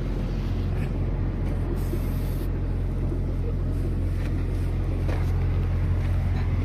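An engine running steadily with a low, even hum. A brief high hiss comes about two seconds in, and a few faint ticks occur throughout.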